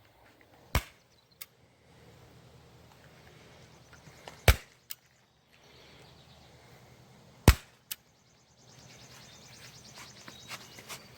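Staple gun firing staples through vinyl into a wooden seat base. Three sharp shots a few seconds apart, each followed by a smaller click.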